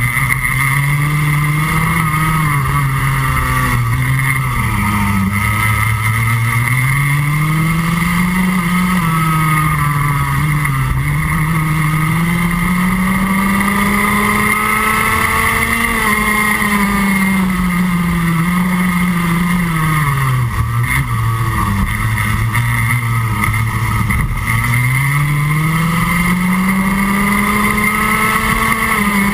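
Rotax Max Junior 125cc single-cylinder two-stroke kart engine at racing speed. The revs climb for several seconds along each straight and drop sharply going into each corner, about six times over.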